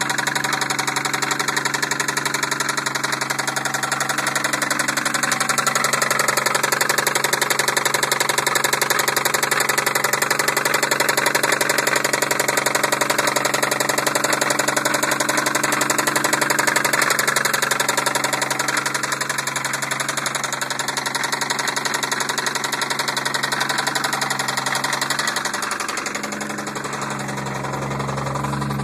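1990 Toyota Supra Turbo's 7M-GTE turbocharged inline-six running with a rapid, steady knock from the engine. The engine note drops a little in level and pitch about three seconds before the end.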